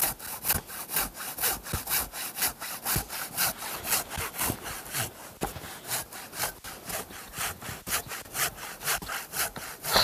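Hand saw cutting through a log in steady back-and-forth strokes, about three a second.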